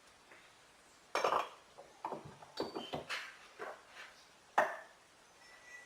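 Metal starter-motor parts clinking and knocking as they are handled and fitted together on a workbench: a run of irregular clatters, with the sharpest knock near the end.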